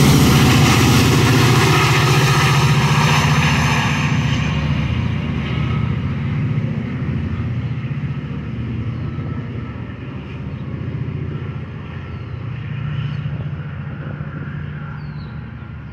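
Diesel locomotive of a departing Metra commuter train, an EMD F40PH, running under power with its engine drone and wheel noise fading steadily as the train moves away. A few faint high chirps come near the end.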